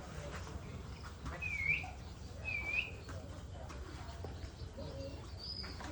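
A bird calling twice, about a second apart: two short chirps that dip in pitch and rise again, over a low steady background rumble.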